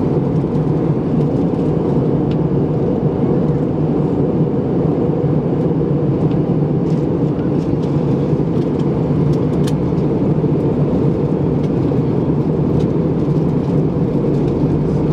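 Steady cabin noise of an Airbus A320 in flight: a deep, even rumble of engines and airflow heard from inside the cabin, with a few faint ticks near the middle.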